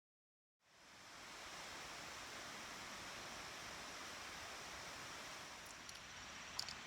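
Steady, even rushing of a mountain stream, Jeremys Run, starting just under a second in after dead silence, with a small click near the end.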